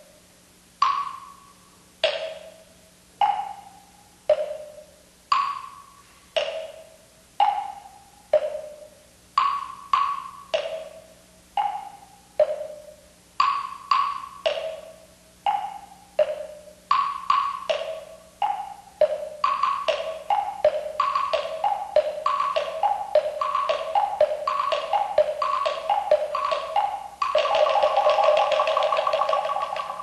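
Several moktak, Korean Buddhist wooden fish, struck with wooden mallets, each stroke a short hollow knock that rings briefly. The strokes come about one a second in different pitches, then speed up and overlap, and near the end they become a fast continuous roll that stops suddenly.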